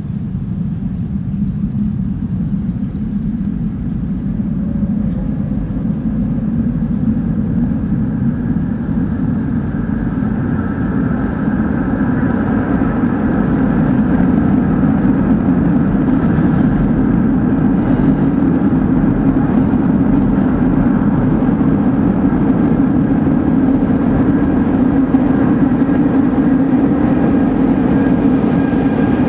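Underground metro train approaching through the tunnel: a steady low rumble that grows louder, with thin whining tones coming in over the second half.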